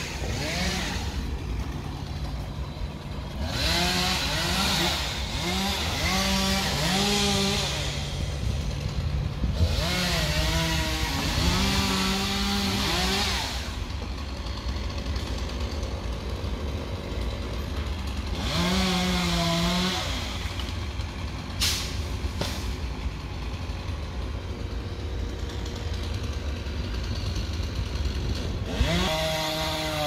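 A chainsaw revving up and down in several separate bursts of cutting, over the steady low running of a truck engine.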